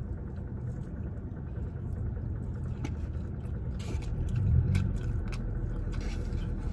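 Close chewing and biting with small wet mouth clicks, over the steady low rumble inside a parked car.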